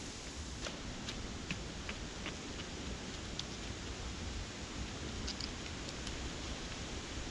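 Steady wind rushing and rumbling on the microphone, with faint scattered clicks and rustles.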